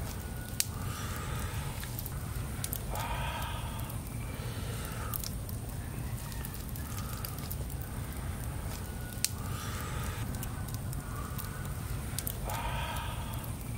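Chickens clucking now and then, a short call every second or two, over a steady low rumble, with two sharp clicks.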